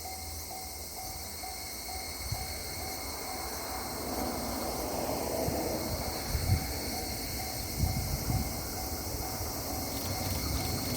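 Japanese level-crossing warning bell ringing its electronic tone steadily about twice a second, while a low rumble from the approaching train builds from about four seconds in, with a few dull thumps around the middle.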